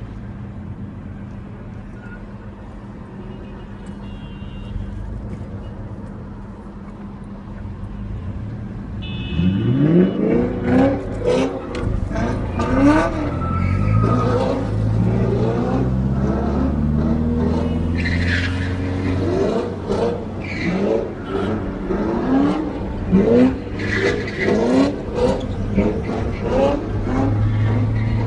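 A Chevrolet Camaro's LS3 V8 revved hard again and again while the car drifts, the revs climbing and dropping about once a second. Before that, for about the first nine seconds, there is only a steady low engine hum.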